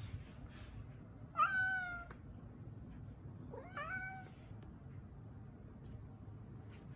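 Domestic cat meowing twice, about two seconds apart, each meow rising and then held briefly, over a low steady hum.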